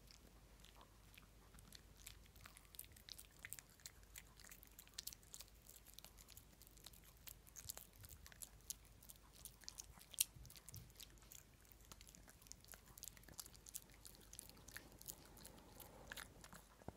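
Shih Tzu chewing a small hard treat: faint, irregular crunching clicks of its teeth, with one louder crunch about ten seconds in.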